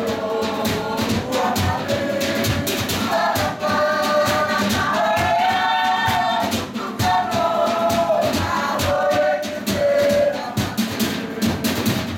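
Tokelauan fatele song: a group singing together in unison over rapid, steady percussion beats, the voices climbing in pitch and shifting together. The song cuts off abruptly near the end.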